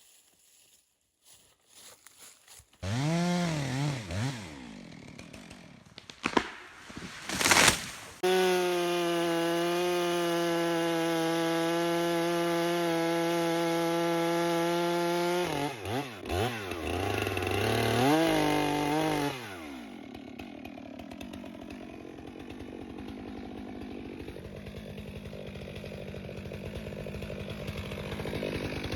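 Stihl MS 462 two-stroke chainsaw starting up about three seconds in and revving up and down, then held at a steady high throttle for about seven seconds. It drops back, revs again, and then runs more quietly for the last nine seconds or so, its pitch wavering.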